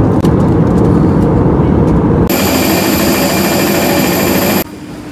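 Steady low rumble of airliner cabin noise; about two seconds in it cuts to the loud hiss and high steady whine of a jet engine running on the tarmac, which stops abruptly near the end.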